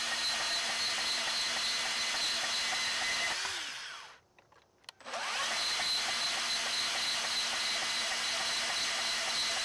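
RIDGID 18V cordless compact band saw on its top speed setting, running and cutting through steel rebar with a steady motor whine. About three and a half seconds in it winds down to a stop, and a second later spins back up and runs on.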